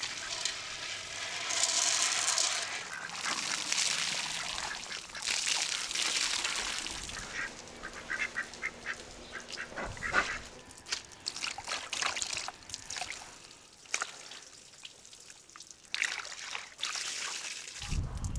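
Water gushing from a hose into large aluminium cooking pots, splashing as they fill. Through the middle, domestic waterfowl call repeatedly in short calls.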